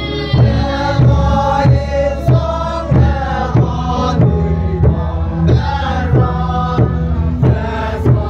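A crowd of men and women singing a chant-like song in unison, with a drum struck with a wooden mallet about twice a second keeping the beat.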